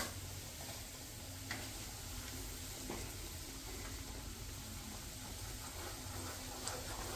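Semolina and gram flour frying in ghee in a kadhai: a faint, steady sizzle, with a wooden spatula stirring through it and a few light taps against the pan.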